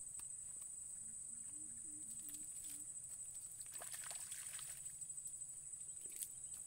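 Steady high-pitched drone of insects in swamp grass, with scattered small clicks and a few faint low notes in the first half. About four seconds in there is a brief rustle and slosh of wet grass and mud.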